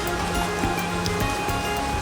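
Background music with held, sustained notes over a steady rushing of stream water.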